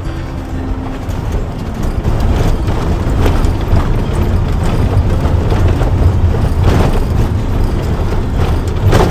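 Motorhome driving on a rough road, heard from inside the cab: a steady low rumble of engine and tyres with scattered knocks and rattles. It cuts off abruptly near the end.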